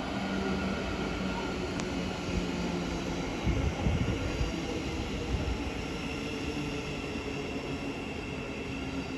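Class 700 Siemens Desiro City electric multiple unit running into the station, a steady rumble of wheels on rail and running gear. A faint high whine comes in about halfway through.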